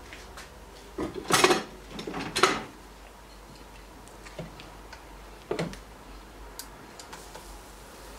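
Spatula knocking and scraping in a glass mixing bowl of waffle batter. There are two loud clattering bursts, about a second in and near two and a half seconds, then a smaller one about five and a half seconds in, with light clicks between.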